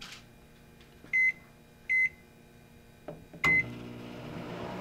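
Microwave oven keypad giving three short, high beeps about a second apart as it is set. The oven then starts up with a steady low hum.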